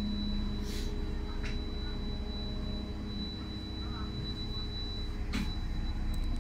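Inside a city bus: a steady low rumble with a thin, high-pitched whine, a lower hum that fades out about halfway through, and three short clicks or knocks.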